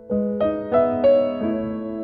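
Background music: a soft piano melody, five notes struck in quick succession over held chords, then ringing on.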